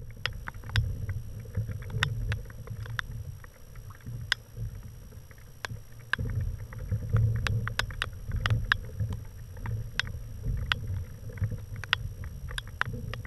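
Kayak on the water, with a low, uneven rumble of water and wind against the hull and microphone and many sharp, irregular clicks and knocks from the boat and its gear.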